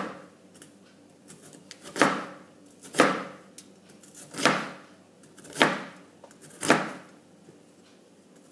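Bitter gourd (karela) being cut with a knife: six sharp cutting strokes, about a second apart.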